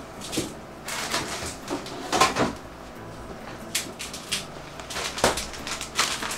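Salt shaker and pepper grinder being worked over a saucepan: several short clicks and knocks, spaced irregularly.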